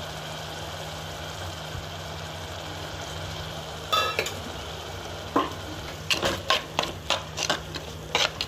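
Prawns sizzling steadily in oil in a clay pot (mann chatti). About halfway through a spoon clatters briefly as chilli powder goes in. From about six seconds a metal spoon knocks and scrapes against the clay pot in quick strokes, about three a second, as the masala is stirred.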